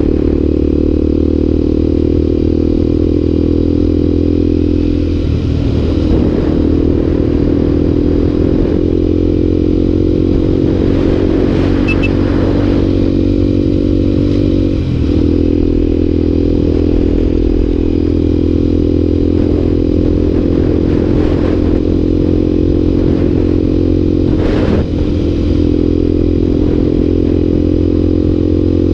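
Motorcycle engine running steadily while riding along, heard from on the bike. Its note dips briefly three times, about a third of the way in, halfway and near the end.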